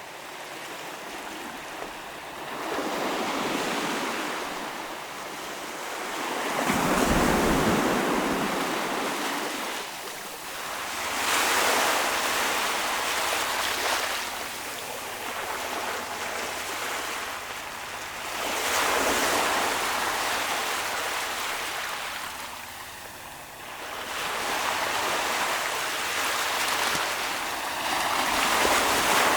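Ocean waves breaking on the shore and washing back, swelling and fading in repeated surges every few seconds, with a short low rumble from one heavier wave about seven seconds in.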